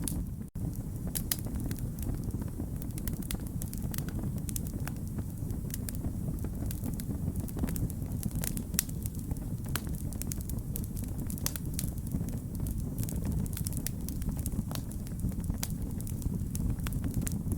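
Wood fire burning with a steady low rumble and frequent sharp crackles and pops of burning wood. The sound cuts out for an instant about half a second in.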